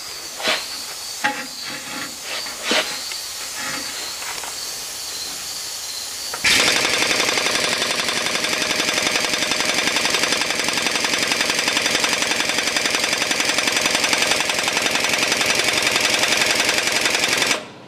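3/4-inch air impact wrench hammering steadily on the crankshaft pulley's center bolt for about eleven seconds, starting about six seconds in after a few scattered knocks, then stopping. The bolt does not break loose; the impact is held back by a small air line.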